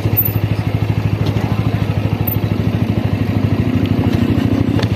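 Motorcycle engine running at low revs with a fast, even pulse as the bike crawls over a loose stony track. A sharp click, likely a stone, near the end.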